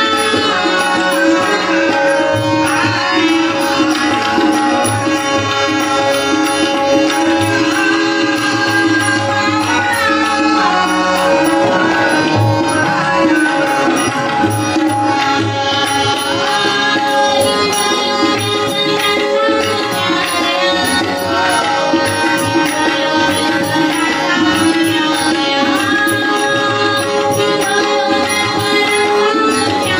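Indian music: tabla playing a steady rhythm under a melody, over held drone tones.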